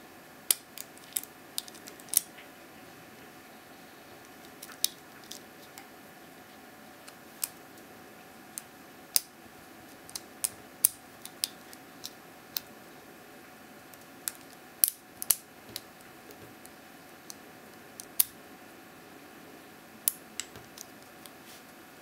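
Irregular sharp metallic clicks and ticks, some in quick clusters, from a pick and tension wrench working the five anti-pick pins in the keyway of a brass Vachette Achille 50 mm padlock, over a faint steady hiss.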